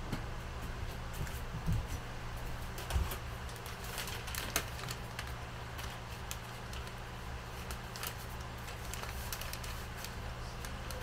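Scattered light clicks and taps, irregular and close by, over a steady low hum.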